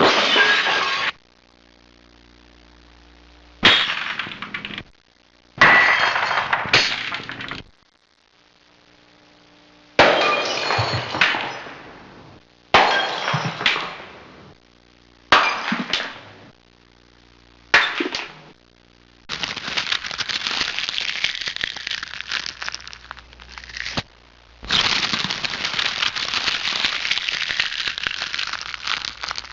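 A series of separate glass-breaking sound effects: about eight sharp crashes, each followed by a tinkle of falling shards that dies away within a second or two. Short gaps come between them. Near the end come two longer stretches of dense, steady crackling, each lasting about five seconds.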